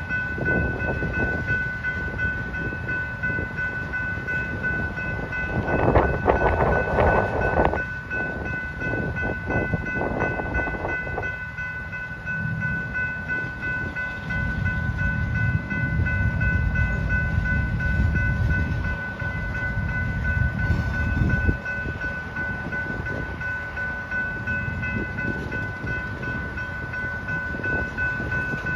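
Freight train cars (covered hoppers, then tank cars) rolling past: a steady low rumble of steel wheels on rail, with a steady high whine held throughout. A louder rush of noise comes about six seconds in and lasts a couple of seconds.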